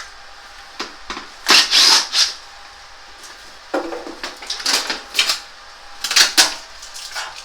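Clattering handling noise in three bursts as air-conditioner installation parts are picked up and moved, most likely the metal wall-mounting plate for the indoor unit.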